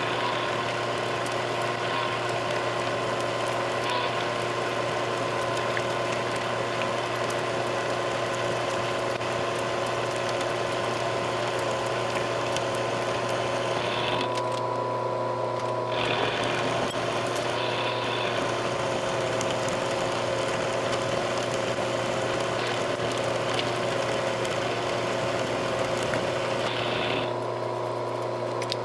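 Bridgeport milling machine running and cutting metal stock: a steady motor hum and spindle whine under a rough cutting noise. The cutting noise drops away briefly twice, about halfway through and near the end, while the machine keeps running.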